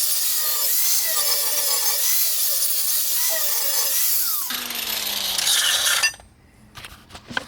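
Angle grinder with a flap disc sanding down a weld on a steel fender lip, its whine wavering under load. About four and a half seconds in it comes off the metal, winds down with falling pitch and stops, followed by a few light clicks.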